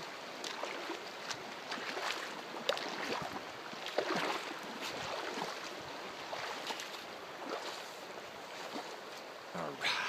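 Irregular splashing steps of a person wading through a shallow mountain creek about eight inches deep, over the steady rush of the flowing water.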